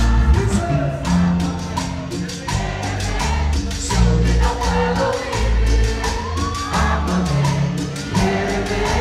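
Band music: a bass line stepping between notes under quick, even percussion, with singing voices gliding over it.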